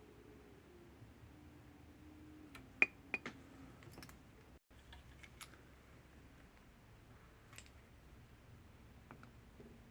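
Small clicks and taps of hand tools on a repair bench over faint room tone: a sharp click about three seconds in followed closely by two lighter ones, then a few scattered softer ticks.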